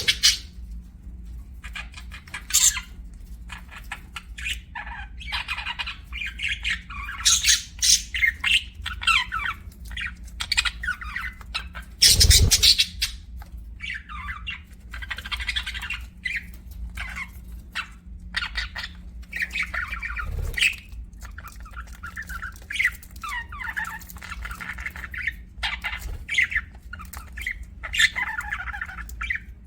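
Pet budgerigars chirping and chattering continuously, several birds calling over one another, with one loud harsh squawk about twelve seconds in.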